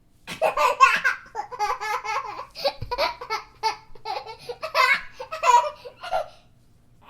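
A baby laughing: a run of short, high-pitched giggles and belly laughs that lasts about six seconds and stops near the end.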